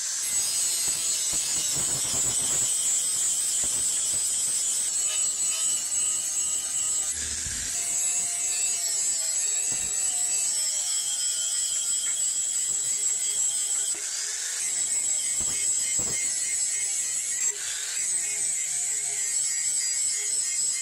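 Electric angle grinder with a flap disc running steadily and grinding the steel head of a small axe, a constant high whine over a gritty grinding hiss.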